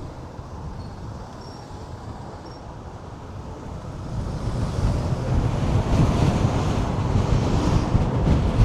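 Wind buffeting the camera microphone in a low rumble, growing stronger about halfway through as a gust picks up.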